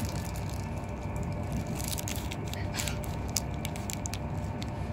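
Steady low rumble of an electric InterCity 225 train running at speed, heard from inside a Mark 4 passenger coach, with faint scattered clicks and crackles over it.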